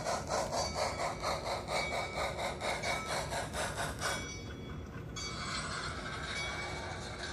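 HO scale model train running on its track, the steam locomotive passing close by with a rhythmic beat of about four strokes a second. After about four seconds the beat gives way to a steadier, quieter running sound.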